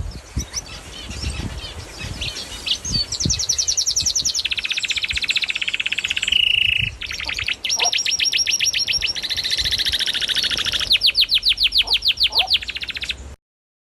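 A small bird singing long, rapid trills of repeated high notes, several phrases one after another. The song cuts off suddenly near the end.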